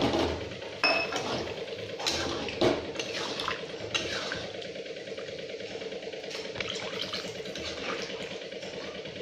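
Metal spatula stirring a watery vegetable curry in a metal wok: it knocks and scrapes against the pan several times in the first four seconds, with one brief ringing clink, then it stirs more gently through the liquid. A steady low hum runs underneath.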